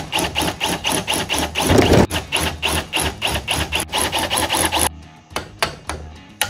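Hammer striking metal in quick, even blows, about five or six a second with a ringing metallic ping, stopping about five seconds in, followed by a few slower single strikes.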